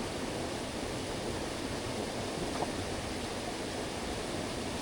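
Steady rushing of a mountain stream's flowing water.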